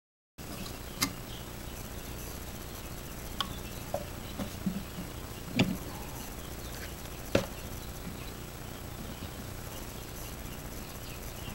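A handful of sharp clicks and light knocks as a plastic shotgun shell and wad are handled and seated in a homemade shell-loading press on a wooden block. The two loudest knocks fall near the middle, over a steady background of crickets chirping.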